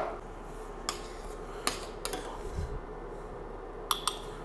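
A few light, scattered clinks of kitchen utensils against a stainless steel pan and a small porcelain jug, with a sharper pair of clinks near the end.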